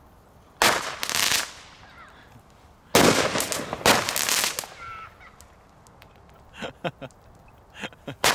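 Category 1 crackling balls (knetterballen) going off in bursts of rapid crackling. A short burst comes about half a second in, and a longer, louder one about three seconds in. A few sharp single pops follow near the end.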